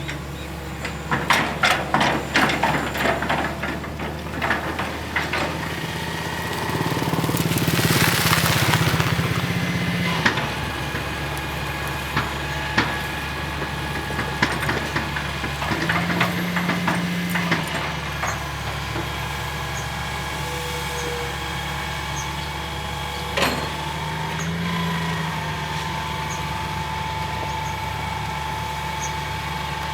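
Hitachi EX220-1 long-reach excavator's diesel engine running steadily with a steady hydraulic whine, the engine note swelling under load three times. A rapid clatter of knocks in the first few seconds and a rushing hiss about eight seconds in.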